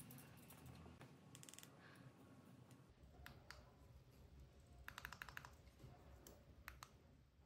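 Faint clicks and light taps of small plastic and metal parts being handled and fitted together: a knob going onto a control board's rotary encoder, with its aviation-plug connector attached. A quick run of clicks comes about five seconds in.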